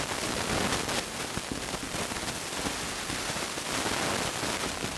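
Steady hiss, with faint scratching of a marker writing on a whiteboard.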